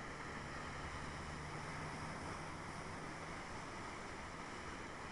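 Steady rushing of the flood-swollen Bonaparte River, flowing fast and hard: a constant, even noise of fast-moving water.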